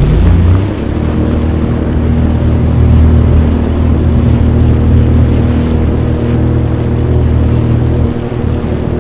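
Jet ski engine running at a steady speed under way, a constant hum, with the rush of water and wind beneath it.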